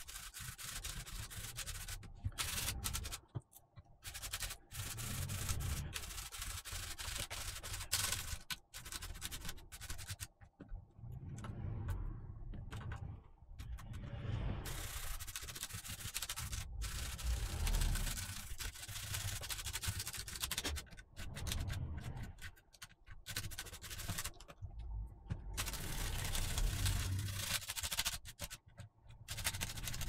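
Toothbrush bristles scrubbing the plate of a mechanical keyboard between its Cherry MX Brown switches: runs of rapid rubbing strokes broken by short pauses.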